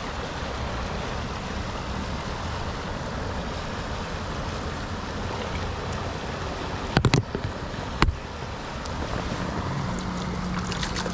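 Steady rush of flowing creek water over a riffle. About seven seconds in comes a quick cluster of sharp knocks, and a second later a single knock; these are the loudest sounds.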